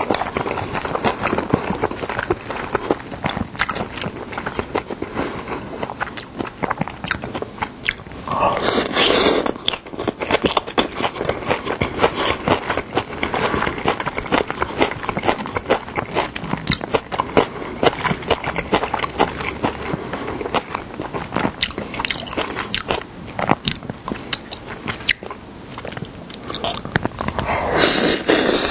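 Close-miked wet squelching and scraping of yeolmu bibimbap being mixed with a spoon in a stainless steel bowl. There are louder stretches about nine seconds in and near the end, the last a big mouthful being eaten and chewed.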